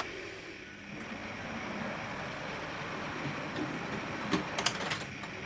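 Model train running along the layout's track: a steady rumble from the locomotive's motor and the wheels on the rails, with a few sharp clicks near the end.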